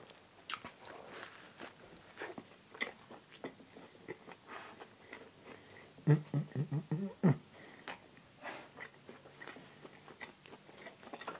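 Close-miked eating: biting and chewing food, with many small wet mouth clicks. About six seconds in comes a brief low hum, the loudest sound.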